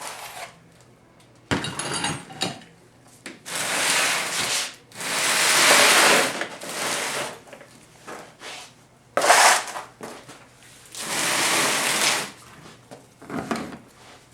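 Hard objects being shifted and set down on a work surface: several long scraping slides and clatters, with a few sharp knocks.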